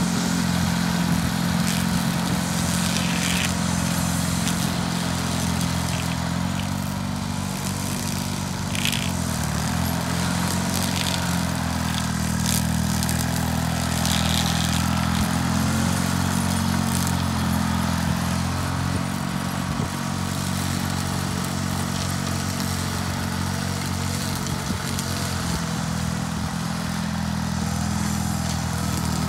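John Deere 440 crawler dozer's engine running steadily as the machine works a pile of dirt, its pitch shifting a few times.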